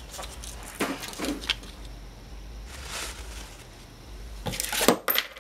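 Workshop handling noises: a few scattered rustles and light knocks, with a louder rustling scrape about five seconds in.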